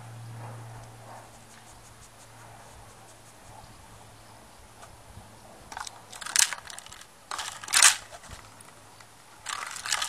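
Plastic drink bottle hung on a rope crinkling and knocking in short bursts as a beagle paws and mouths at it. The bursts start about six seconds in, the loudest near eight seconds.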